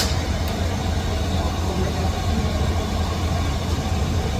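Metal lathe running with a steady low hum and an even noisy hiss over it, with one sharp click at the very start.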